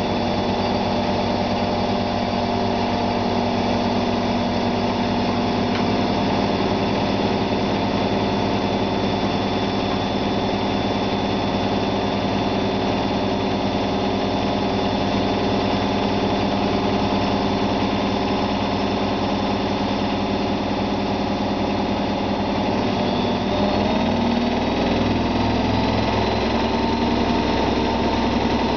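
Zanussi ZWF 1621 W washing machine on a spin cycle: the motor and drum whirr steadily at high speed. The machine's note changes about three quarters of the way through, as the spin speed shifts.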